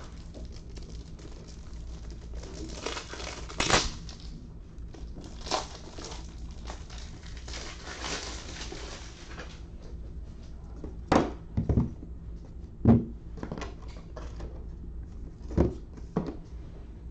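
Crinkling and rustling of something handled close to the microphone for several seconds, then five short sharp knocks over the last six seconds, above a faint low steady hum.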